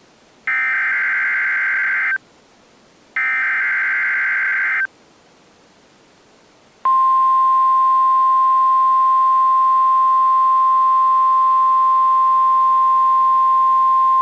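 Emergency Alert System SAME header: two buzzy digital data bursts, each about a second and a half long and a second apart. After a short pause, the steady single-pitch 1050 Hz National Weather Service alert tone starts about seven seconds in and holds. Together they open a broadcast National Weather Service warning, here a special marine warning.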